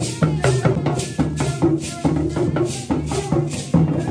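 Live African hand drumming: several hand drums beaten in a quick, steady dance rhythm, with a rattle keeping time on top.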